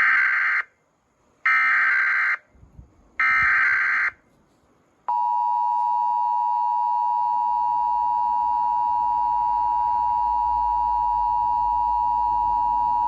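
Emergency Alert System activation signals: three short bursts of SAME header data, about a second apart, then the EAS two-tone attention signal held steady for about eight seconds. They mark the start of an emergency alert, here an Amber Alert.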